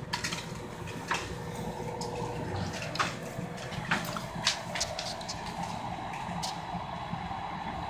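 Aquarium filter water trickling and splashing steadily, with a few sharp clicks scattered through it.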